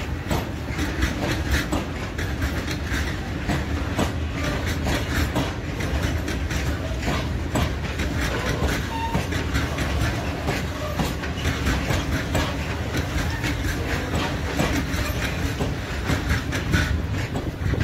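Freight train of covered hopper wagons rolling past while pulling out of the station, its wheels clacking steadily over the rail joints above a continuous low rumble.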